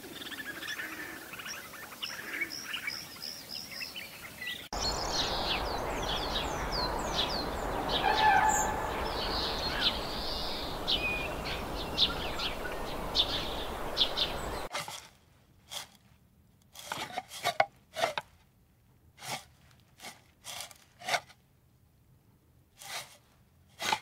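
Birds chirping over a steady noisy background. After an abrupt cut about two-thirds in, a quiet stretch is broken by a series of short, sharp, separate sounds.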